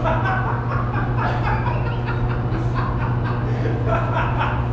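Indistinct voices with chuckling, over a steady low hum.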